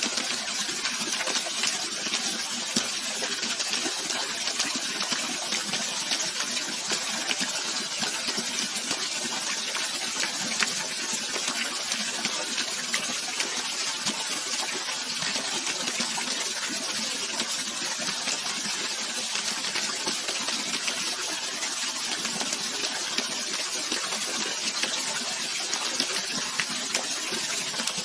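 Running water splashing and gurgling steadily, a bright, hissy rush with little deep rumble and no change in level.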